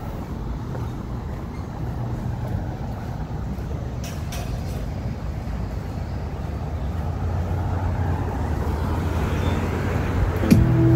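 Street traffic: a steady low rumble of passing vehicle engines and tyres, growing a little louder toward the end, with a couple of brief clicks about four seconds in.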